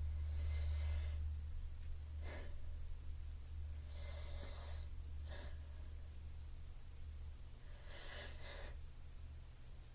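A person's breathy inhales and short sharp sniffs: three drawn breaths and two quick sniffs, the hitching breathing of a sneeze building up, with no sneeze released. A steady low hum runs underneath.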